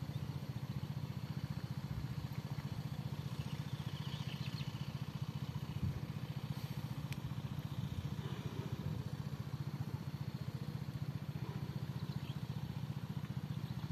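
A small engine running steadily, a low hum with a rapid, even chug that does not change.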